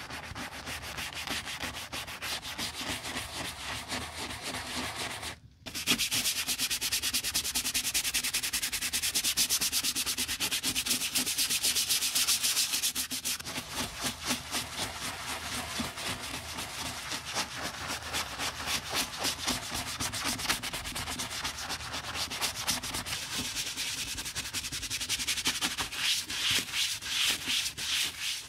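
Bristle brush scrubbing a foamy, soap-lathered shoe insole in quick repeated back-and-forth strokes. It breaks off briefly about five seconds in, then resumes louder.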